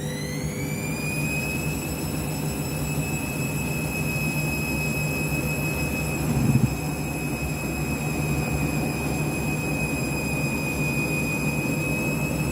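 Candy washing machine spinning: the motor's whine rises in pitch and then holds steady at spin speed over the drum's rumble, with a brief thump about six and a half seconds in. The drum is full of excess suds (a sudslock), which drag against the spin.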